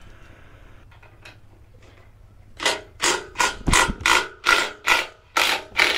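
Cordless impact driver hammering at a seized, thread-locked stainless fastener in short trigger bursts. About a dozen quick bursts, a bit under three a second, start about two and a half seconds in, with one heavier knock among them.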